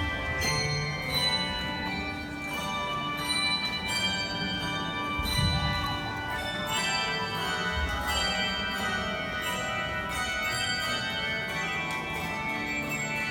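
Handbell choir playing a piece: many tuned handbells struck in turn, their notes ringing on and overlapping.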